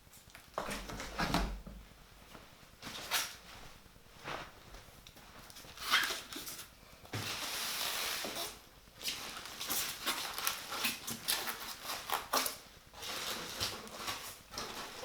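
Cardboard box of a PC case being handled and worked open: irregular scrapes, rustles and knocks, with a steadier scraping stretch of about two seconds past the middle.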